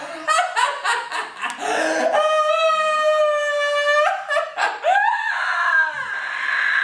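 A man's exaggerated, theatrical witch's cackle: quick choppy laughs, then a long held high note of about two seconds, then more laughing that slides up and down in pitch.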